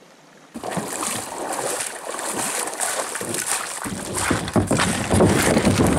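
Footsteps splashing through shallow river water while a kayak is dragged over river stones and gravel, with irregular splashes and scrapes. It gets louder about four seconds in.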